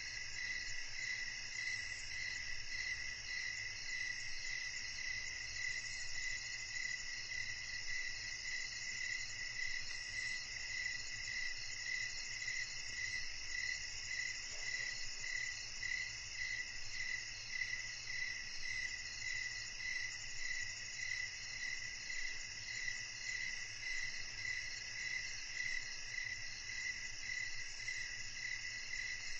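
Night chorus of crickets and other insects, a steady pulsing trill with a higher, continuous shrill above it.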